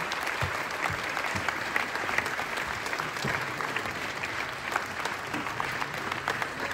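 Theatre audience and cast applauding together: a steady, dense clapping of many hands.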